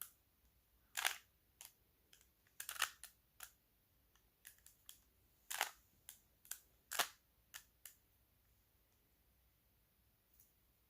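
Rubik's cube layers being turned by hand: a run of short, sharp plastic clicks at an uneven pace, some in quick pairs, stopping about eight seconds in.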